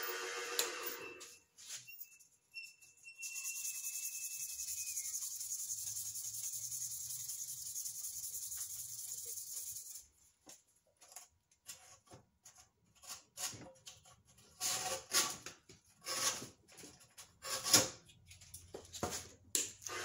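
Sandpaper hissing steadily against a bubinga pen blank spinning on a wood lathe; about ten seconds in the lathe stops and the sound turns into a string of short, irregular scratchy strokes as the blank is sanded by hand along the grain.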